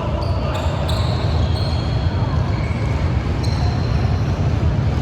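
Basketball game play on an indoor court: the ball bouncing amid steady gym noise, with several short high squeaks, like shoes on the floor, in the first second and a half and again past the middle.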